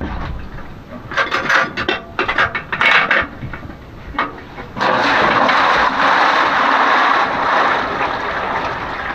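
Metal clanks and knocks as the lid of a large metal milk flask is handled. From about five seconds in, water pours steadily from the flask into a big metal tub, splashing.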